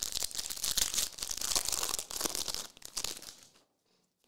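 Foil wrapper of a trading card pack crinkling and tearing as it is opened, a dense crackle that stops about three and a half seconds in.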